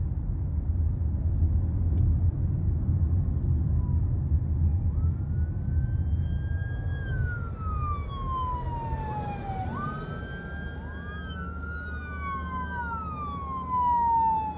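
Emergency sirens on approaching fire engines, wailing from about five seconds in. Several slow rising-and-falling sweeps overlap, over the low rumble of the car being ridden in.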